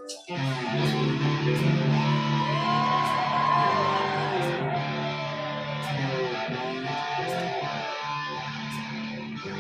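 Live band music led by electric guitar in the instrumental opening of a rock song: sustained chords underneath, a lead line bending in pitch above, and faint ticks keeping time. It comes in suddenly just after the start.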